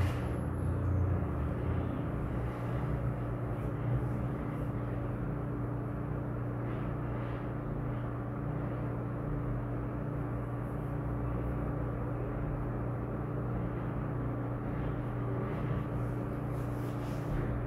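Steady low hum with a constant background hiss: room noise with no speech, a little fuller in the bass during the first few seconds, and a few faint soft knocks.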